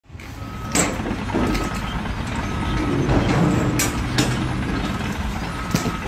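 Truck's reversing alarm beeping about once a second over the low running of its engine, with a few sharp knocks.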